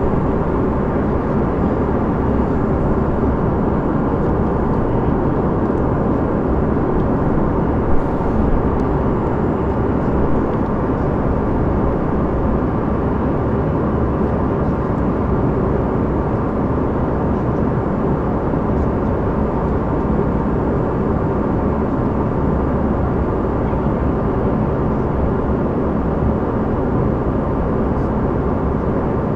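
Steady cabin noise of a Canadair CRJ200 in flight: a constant low rush of airflow and its rear-mounted GE CF34 turbofan engines, with a faint high steady whine. A brief click about eight seconds in.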